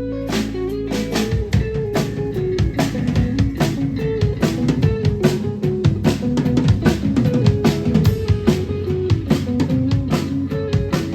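A rock band playing, the drum kit beating fast and steadily over bass and guitar; a held chord gives way to the full band groove about a second in.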